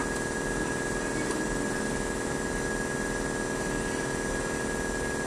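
Steady machine hum: a low, even, engine-like drone with a thin high whine held through it.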